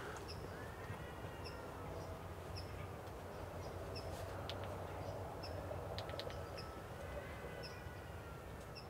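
Quiet woodland ambience: a short, high bird call repeats every second or so, with a few faint, drawn-out wavering cries behind it.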